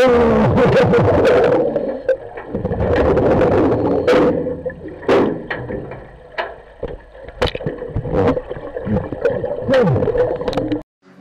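Underwater sound picked up through a GoPro's waterproof housing: gurgling and bubbling water with many sharp clicks and knocks, over a steady hum. The sound cuts out abruptly just before the end.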